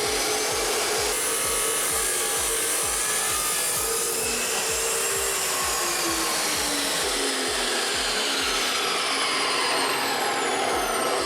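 DeWALT 14-inch abrasive chop saw running with a loud whine; in the middle its whine slowly falls in pitch.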